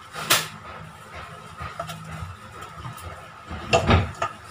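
Metal cake pan knocking and rattling on the counter as its inside is rubbed with butter by hand: one sharp knock shortly after the start and a quick cluster of knocks near the end, over a faint steady hum.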